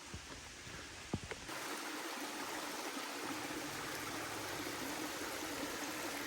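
Flowing stream water, a steady rush that starts suddenly about a second and a half in. Before it there are a couple of faint knocks.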